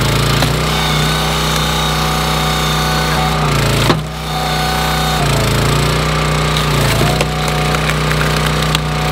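Small gas engine of a hydraulic log splitter running, its pitch dropping and recovering several times as the ram is loaded pushing the wedge through an oak round. A single sharp crack about four seconds in, as the wood gives way.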